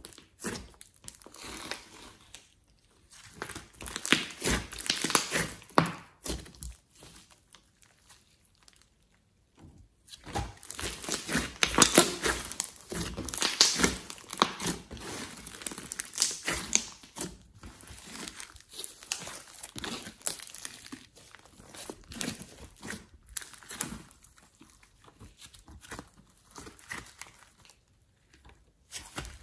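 Thick clay slime being squeezed, poked, kneaded and stretched by hand, giving sticky crackling and squishing sounds. The sounds come in handfuls a few seconds long with short quiet gaps between them, the longest gap about eight to ten seconds in.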